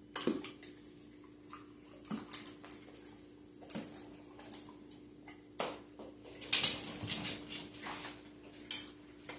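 Dogs fidgeting on a hard floor: scattered soft clicks and shuffles of claws and movement, busiest a little past halfway, over a faint steady hum.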